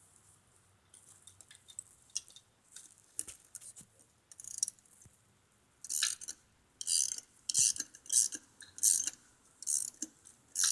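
Hand tools clinking against metal bike parts, then, about six seconds in, a ratchet wrench cranked in short repeated strokes, about three rasping bursts every two seconds, as a bolt is tightened on a bicycle.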